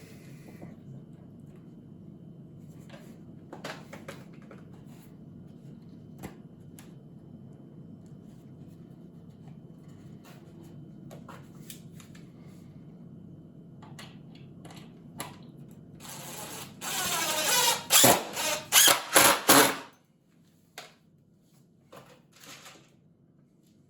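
Power drill whirring up to speed about 16 seconds in, then running in several short trigger bursts before stopping, while screws or pilot holes go into the wooden rack supports. Before it, a low steady hum with scattered light clicks and knocks of wood being handled.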